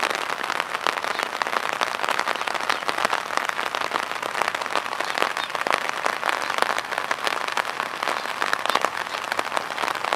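Steady rain: a dense, even crackle of many drops striking at once.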